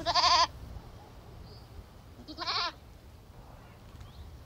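A goat bleating twice: two short wavering calls of about half a second each, the second about two seconds after the first.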